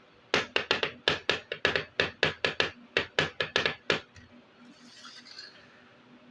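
A rapid, even run of about sixteen sharp clicks, some four a second, from small plastic toy kitchen pieces being handled, followed by a brief soft rustle.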